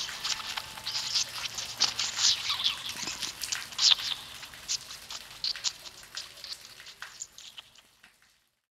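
An irregular patter of short, sharp crackles that thins out and fades to silence near the end.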